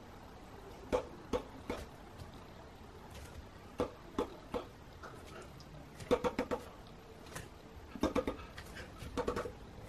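A man whimpering and sobbing without words: short pitched sobs in little groups of three or four, repeated several times.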